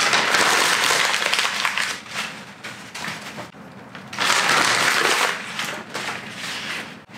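Sheets of paper crumpled into balls by hand: two bouts of crackling, one in the first two seconds and another from about four seconds in.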